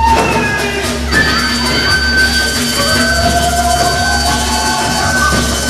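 Live Peruvian folk dance music from a small stage band, with long held melody notes over a continuous accompaniment.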